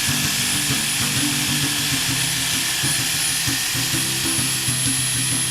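Background music over a steady, very high-pitched motor whine with hiss.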